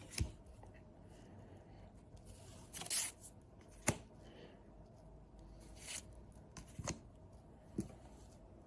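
Pokémon trading cards and a foil booster pack being handled: faint, scattered rustles, crinkles and light taps, a handful of brief sounds spread over several seconds.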